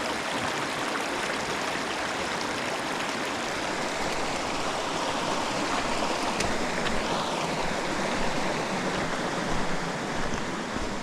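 Stream water rushing over rocks: a steady, close rush of flowing water.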